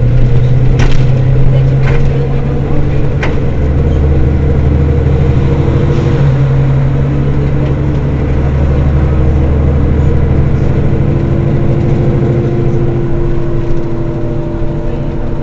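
Mercedes-Benz Citaro city bus engine idling steadily, a loud low drone, with a few light clicks in the first few seconds.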